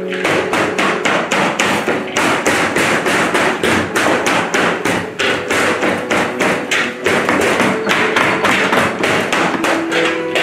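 Rapid, steady knocking or tapping, about five sharp knocks a second, with faint music underneath.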